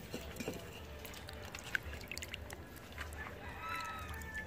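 A faint drawn-out animal call, a held tone with overtones starting about three seconds in, over scattered light clicks and knocks.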